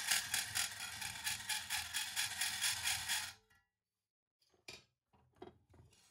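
Hacksaw cutting sheet stainless steel held in a bench vise, in quick, even strokes. The sawing stops about three and a half seconds in, followed by a few faint clicks of the saw and plate being handled.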